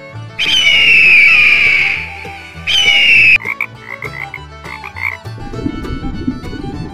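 Frog calls: two loud, high calls that fall slightly in pitch, the first lasting over a second. They are followed by a string of short chirps, and a lower, rough sound comes in near the end.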